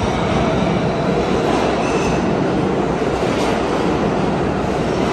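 New York City Subway R160 train running into the station past the platform: a loud, steady noise of steel wheels on rail.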